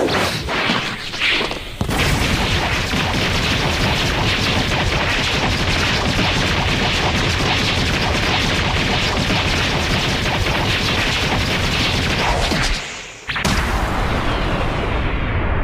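Anime battle sound effects: a few quick whooshes and hits, then a long, loud rumbling blast of noise that stops briefly about 13 seconds in and starts again.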